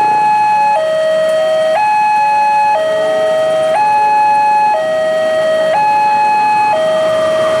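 Railway level-crossing warning alarm sounding: an electronic two-tone signal alternating between a higher and a lower tone about once a second. It warns that a train is approaching the crossing.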